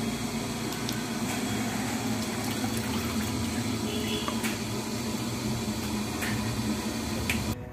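Water at a rolling boil in a pot on a stove, bubbling steadily with a few small clicks. This is the spiced water for parboiling basmati rice. The sound cuts off suddenly near the end.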